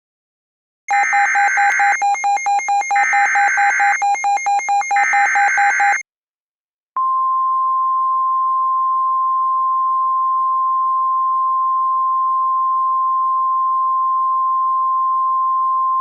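Emergency Alert System SAME header: about five seconds of buzzing digital data tones in three repeated bursts. After a one-second pause, the steady single-pitch National Weather Service warning alert tone sounds, near 1050 Hz, announcing a new tornado warning.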